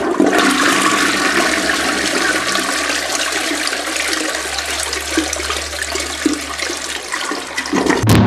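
A toilet flushing: a loud, steady rush of water that stops shortly before a cut.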